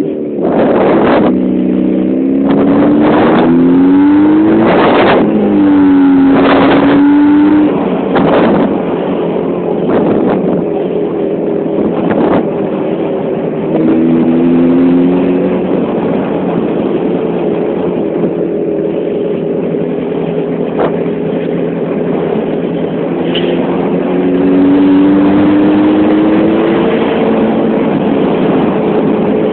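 Jawa 350 type 639 motorcycle's two-stroke twin engine heard from the saddle while riding: the engine note rises as it accelerates through the gears a few seconds in, again about halfway and near the end, and runs steadily at cruising speed in between. Wind noise on the microphone, with several brief thumps in the first dozen seconds.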